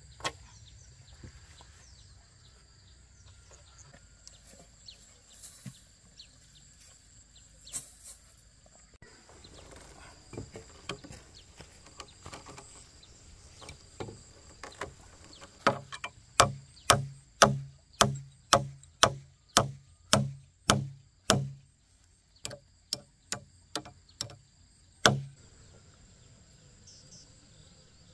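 Knocks of a tool striking a log, about two a second: a run of a dozen or so past the middle, then a few slower ones. Under them runs a steady high insect trill.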